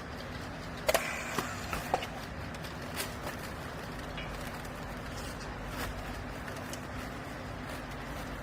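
Steady machinery hum with a few sharp knocks and clanks about a second in and once more around three seconds.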